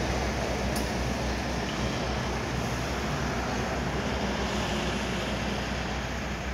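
Iveco ACCO garbage truck's diesel engine as the truck drives away, a steady low rumble with road noise that slowly fades.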